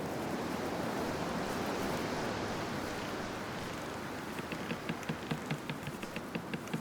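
Leafy bush branches rustling in a steady dense hiss; in the last couple of seconds this gives way to a quick run of sharp crackles, about three or four a second.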